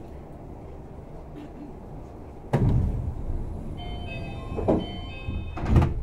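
Sliding passenger doors of a Tama Toshi Monorail 1000 series car at a station, over the low rumble of the stopped car. About two and a half seconds in comes a sudden loud rush of door movement, then a run of short electronic door-chime tones, and a heavy thud near the end as the doors shut.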